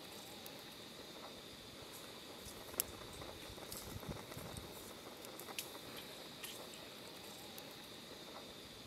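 Eggs frying in a small camping pan over a gas canister stove: a faint steady sizzle with scattered small pops and crackles.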